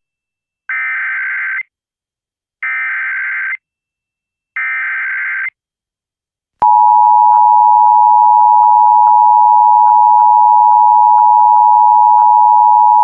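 Emergency Alert System activation: three short bursts of SAME digital header data, each about a second long with gaps between, then the loud, steady two-tone EAS attention signal starting about six and a half seconds in. It announces an incoming Amber Alert (child abduction alert).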